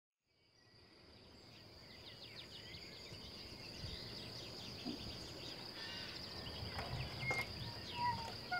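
Countryside ambience fading in from silence and growing louder: many small birds chirping and calling over a steady high-pitched insect trill, with clearer whistled bird notes near the end.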